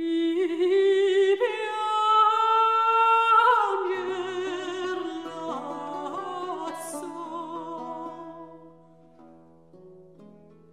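Background music: a voice singing long held notes with vibrato over a steady low drone, rising at the start and fading away over the second half.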